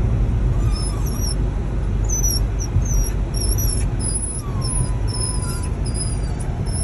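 Dogs whining in short, high squeaks over and over, with one longer whine about halfway through, inside a moving car over the steady rumble of road and engine noise in the cabin.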